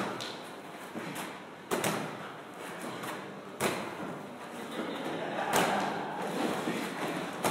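Medicine ball thudding during wall-ball shots against a brick wall, one sharp thud about every two seconds, with steady gym noise in between.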